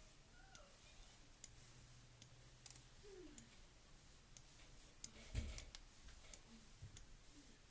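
Computer mouse clicking: about a dozen sharp single clicks at irregular intervals, with a soft low thump about five and a half seconds in.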